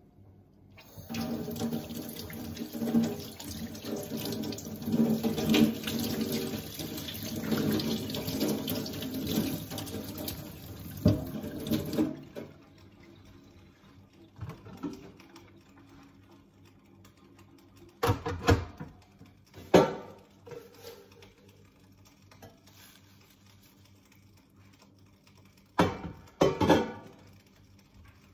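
Kitchen tap running into a steel sink, turned off sharply about twelve seconds in. A few short knocks and clatters follow later.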